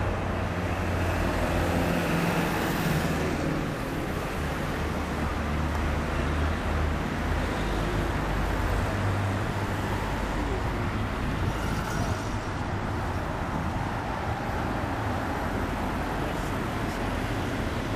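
Steady road traffic noise of cars passing on an urban street, a continuous even rumble and hiss.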